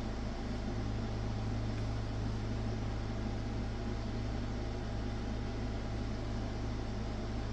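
Steady low hum with an even hiss over it, with no distinct events: the constant background noise of the room.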